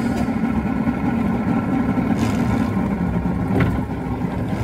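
V6 outboard motor on a Boston Whaler Outrage running underway, a steady low drone. Two brief knocks about two and three and a half seconds in.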